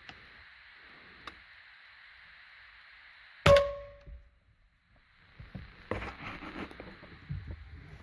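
A single sharp shot from an FX PCP air rifle with a brief metallic ring, about three and a half seconds in, over a steady background hiss. About two seconds later comes irregular rustling and knocking.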